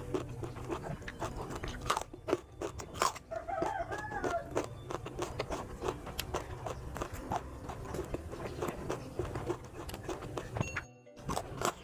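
A chicken calling once about four seconds in, over a run of crackling clicks and rustles.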